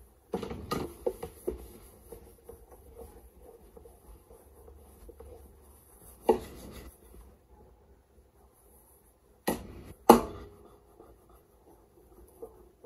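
Kitchen clatter: a quick run of knocks and clunks in the first second and a half, a single knock about six seconds in, and two sharp bangs close together near ten seconds in, the loudest.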